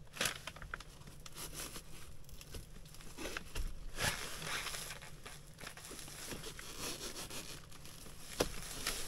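Synthetic fabric rustling and crinkling as a winter jacket and the ice tent's window flap are handled, with a few light clicks and taps.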